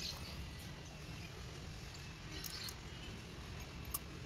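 A few faint, short clicks and taps from gearbox parts, a steel spur gear among them, being handled, over a low, steady background hum.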